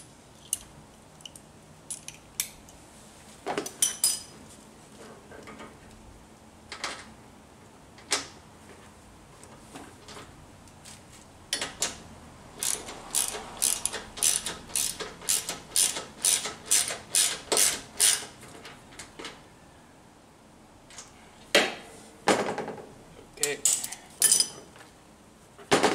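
Hand socket ratchet on an extension clicking as a bolt is turned, in a quick even run of about two to three clicks a second through the middle, with scattered clicks and knocks of tool handling before and after.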